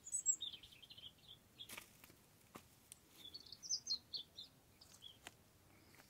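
A small songbird singing: a quick, high, warbling phrase at the start and another a little past the middle, each lasting about a second, with a few faint clicks in between.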